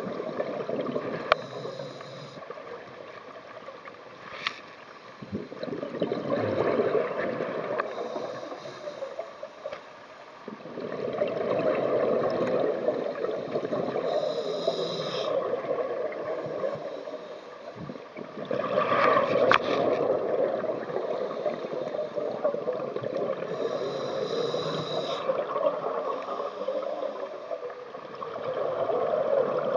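Scuba diver breathing through a regulator underwater. Long surges of exhaled bubbles gurgle several times, and between them comes the short hiss of the regulator on each inhale.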